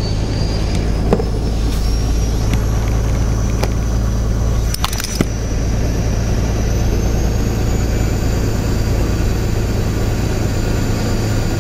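Truck engine running steadily at road speed with tyre and road noise, heard from inside the cab. A faint high whine rises slightly about six seconds in, and a brief cluster of clicks or rattles comes about five seconds in.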